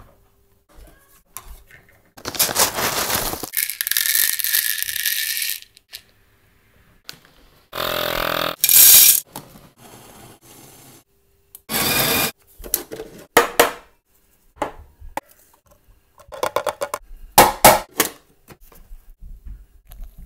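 A run of separate sounds from brewing coffee with an AeroPress: clinks and rattles of handling the gear, a few seconds of steady noise near the start, and several short loud bursts later on.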